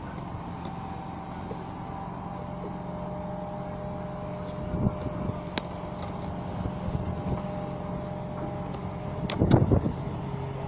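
Truck-mounted crane's diesel engine running steadily under load while it swings a suspended boat, with a faint whine over the drone. A few short knocks, the loudest about nine and a half seconds in.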